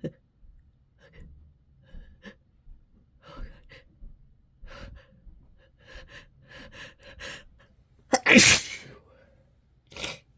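A person's short, quick gasping breaths build up for several seconds, then a loud sneeze comes a little after eight seconds in. A shorter, sharp burst follows near the end.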